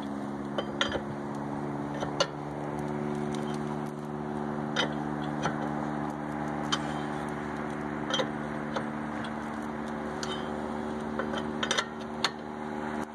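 Scattered metal clinks and knocks of a lug wrench on a wheel's lug nuts as they are loosened, over a steady low hum.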